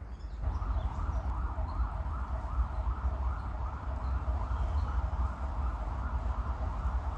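Emergency vehicle siren in a fast yelp, rising and falling about three times a second, starting about half a second in over a low rumble.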